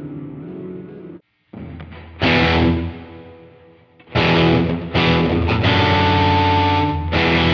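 Overdriven electric guitar, a Fender Stratocaster with noiseless pickups, played through a delay effect: several chords struck, each ringing out and fading, with one note held for a while near the middle. The sound drops out completely for a moment about a second in.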